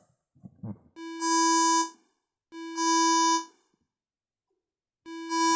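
Synthesized test sound effects from a computer app: two identical short electronic beeps, about a second each. Near the end a longer melodic synth tune of several notes starts.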